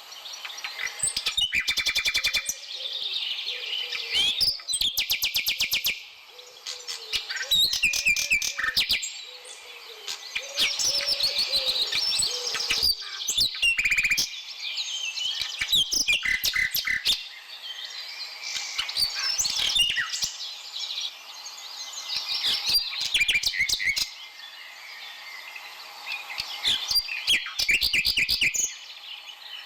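Several birds chirping and calling continuously, mixed with short runs of rapid clicking.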